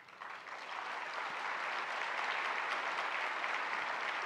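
Audience applauding, swelling during the first second or so and then holding steady.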